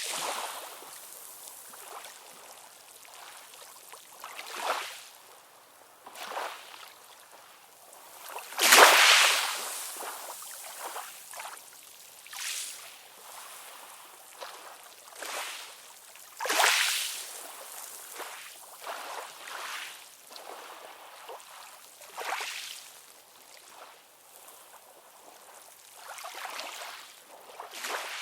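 Ocean waves washing in, a steady hiss of surf that swells and ebbs every few seconds, with two stronger surges about nine and sixteen seconds in. It has almost no deep rumble.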